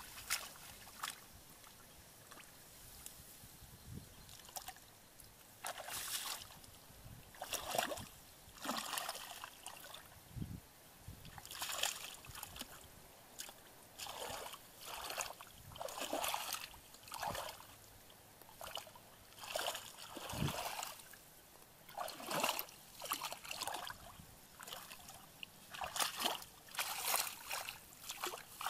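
Shallow muddy paddy water splashing and sloshing as a person wades through it and gropes in it by hand, in a run of short splashes at uneven intervals.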